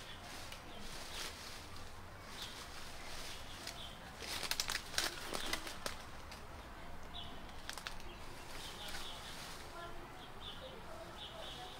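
Footsteps on leaf litter and twigs in woodland undergrowth, with a quick run of crackles about four to five and a half seconds in. Faint bird chirps sound now and then over quiet outdoor ambience.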